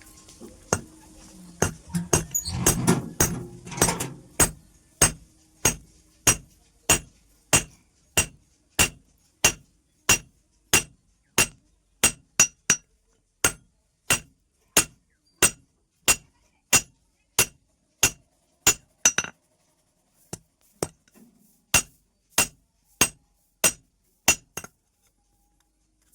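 Hammer striking metal in a steady rhythm, about three clinking, ringing blows every two seconds. There is a short break a little after two-thirds through, and the hammering stops shortly before the end.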